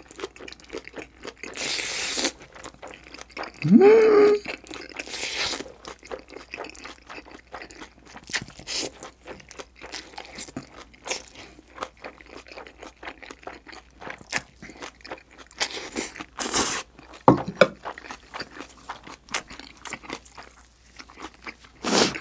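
Close-up mukbang eating sounds: slurping spicy jjolmyeon noodles, then wet chewing and crunching with lots of small smacks. Several loud slurps stand out, the loudest about four seconds in with a short rising tone.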